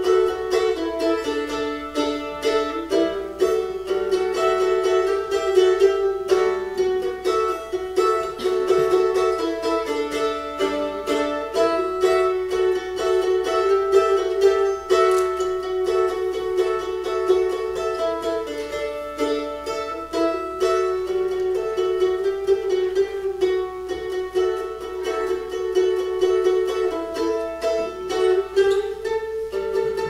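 F-style mandolin playing a melody, with several long held notes.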